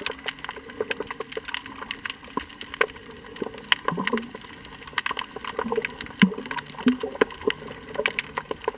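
Underwater ambience over a rocky seabed: a dense, irregular crackle of sharp clicks, with a few short low bubbling gurgles.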